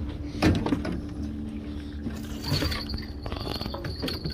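A landing net holding a fish is swung aboard a boat: a sharp knock, a scrape, then a quick run of rattling clicks as the net's frame and mesh hit the boat, over a steady low hum. A thin high tone comes in about halfway through.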